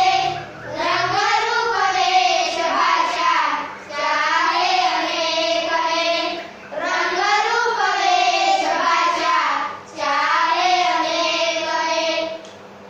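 A group of schoolchildren singing a Hindi song together in unison, in long phrases about three seconds apart with short breaks for breath between them; the singing stops just before the end.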